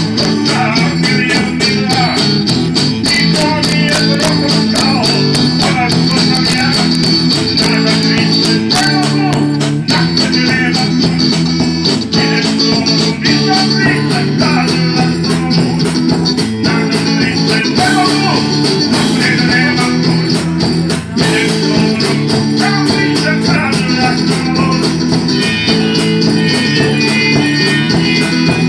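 Instrumental passage of a live pop song: electric guitar playing over a steady drum beat and bass line.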